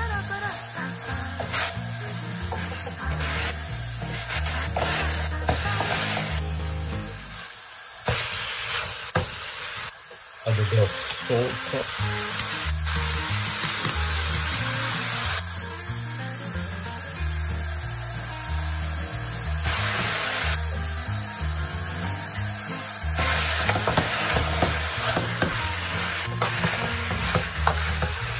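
Sliced onion, tomatoes and sweet peppers sizzling in an aluminium pot while being stirred with a wooden spoon, with occasional knocks and scrapes of the spoon against the pot.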